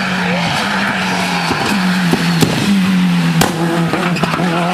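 Rally car engine running hard at high revs along the stage, its note holding nearly steady with several brief dips, and a couple of sharp cracks.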